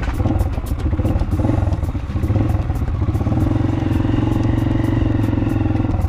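Small motorcycle engine running at low speed, heard from on the bike as it rides a rough dirt track. The engine note wavers in the first couple of seconds, then holds steady.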